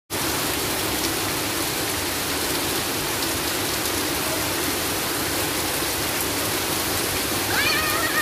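Heavy rain falling steadily on wet ground, an even hiss. A short wavering call cuts through near the end.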